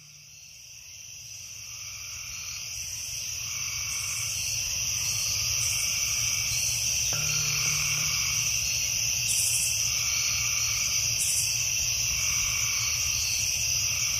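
Nature ambience of an insect and frog chorus. A steady high-pitched insect trill runs under soft frog calls that repeat about every second and a half. It fades in over the first several seconds, then holds steady.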